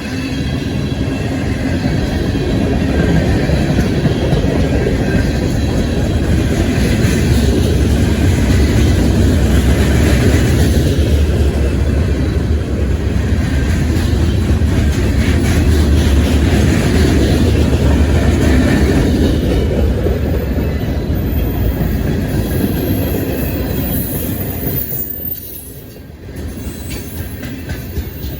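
Freight train rolling past: a steady, loud rumble of cars and wheels on the rails, dipping briefly near the end before going on.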